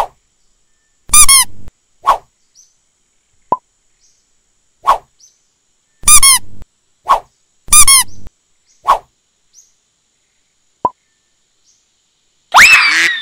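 Squeaky yellow rubber duck toys being squeezed by hand, giving about nine short, high squeaks at irregular intervals, some sharper and some with a longer wheezing tail. Near the end there is a louder, longer squeal that rises and then falls in pitch.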